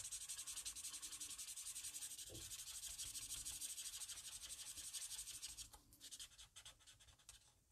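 Felt nib of a Stampin' Blends alcohol marker scrubbing on cardstock in quick back-and-forth colouring strokes, a faint, steady scratchy rubbing. Near the end the strokes grow sparser, then stop.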